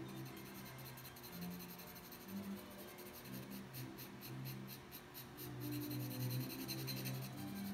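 Charcoal pencil scratching across grey drawing paper in short, repeated shading strokes. The strokes come quicker and louder in the last couple of seconds.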